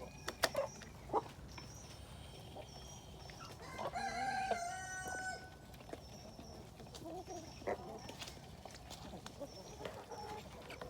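Chickens in a shed, with a rooster crowing once about four seconds in, one long call lasting about a second and a half. Short high chirps repeat throughout, with a few sharp knocks near the start and around eight seconds in.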